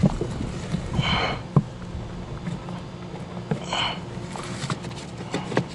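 Cabin air filter being pushed and slid into its plastic housing by hand, giving light clicks and scrapes. Two short breathy rushes come about one second in and again near four seconds, over a low steady hum.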